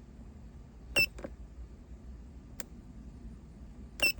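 Sharp clicks of buttons being pressed on a handheld code reader, the louder ones carrying short high-pitched beeps: a pair about a second in, a fainter single click in the middle, and another beep near the end.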